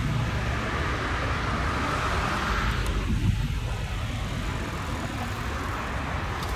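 Steady vehicle engine and traffic noise with a low hum.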